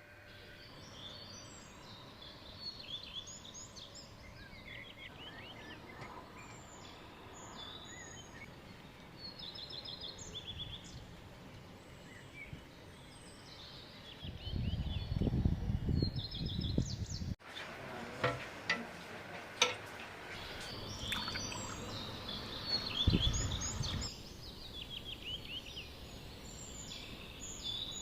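Small songbirds chirping and trilling over a steady outdoor background. A low rumble comes in about halfway through and again later, with a few sharp clicks in between.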